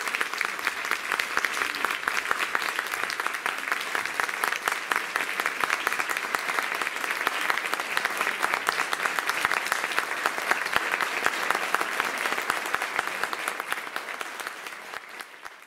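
Audience applauding: dense, steady clapping from a full house that fades out near the end.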